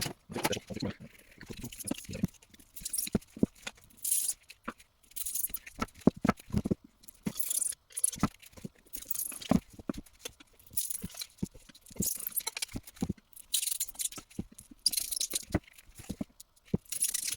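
Hand cutting of holes in a foam seal piece: a run of sharp clicks and short scratchy cutting strokes repeating about once a second, with handling rattles in between.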